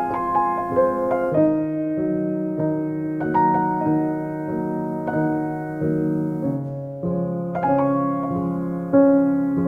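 Background piano music: slow, sustained chords with a melody of held notes, the harmony changing every second or two.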